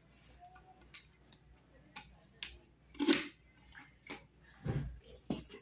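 Irregular plastic clicks and soft knocks from a corrugated plastic pop tube toy being handled, its ends fitted into a small plastic connector, with one duller knock about three-quarters of the way through.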